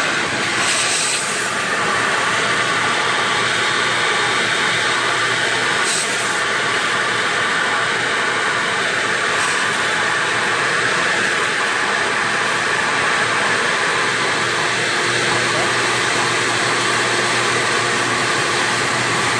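Shop vac running steadily in blower mode, an even rush of air with a motor hum. Its air is forced through a funnel into a scooter's transmission to push out the last of the gear oil.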